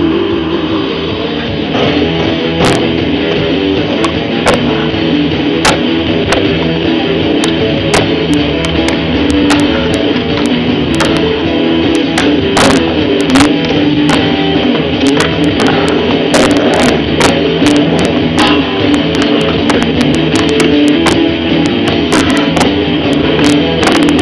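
Rock music with strummed electric guitar, with irregular sharp clicks scattered throughout.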